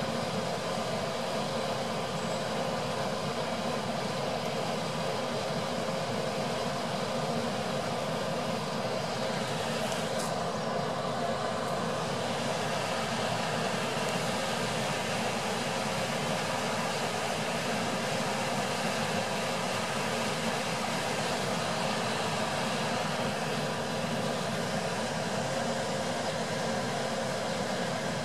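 Steady ambient background noise: an even hum and hiss at a constant level, with no distinct events.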